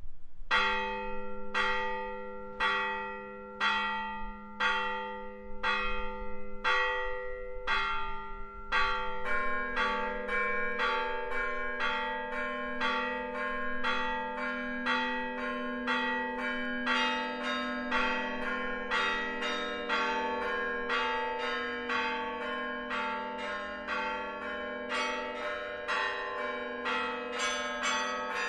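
Church bells ringing: one bell struck slowly, about once a second, then from about nine seconds in several higher bells join in a faster, overlapping peal.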